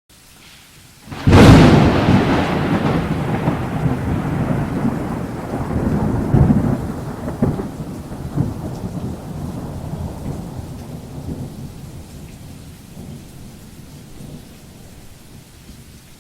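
A thunderclap that cracks suddenly about a second in and rolls off in a long rumble with a few swells, over steady rain hiss.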